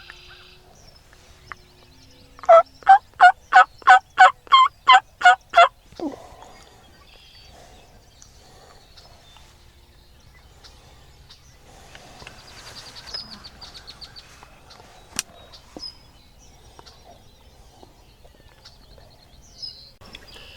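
A series of about ten evenly spaced turkey yelps, roughly three a second, starting a couple of seconds in and ending after about three seconds; they are the loudest sound here. Later a single sharp click.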